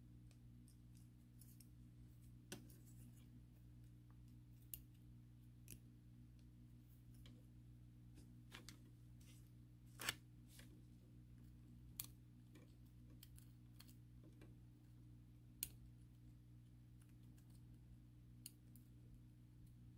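Faint, sparse clicks and small scrapes of a small metal pick working on the metal wheels and axles of a model locomotive's motor truck, picking out old gunk, over a faint steady hum. The sharpest click comes about halfway through.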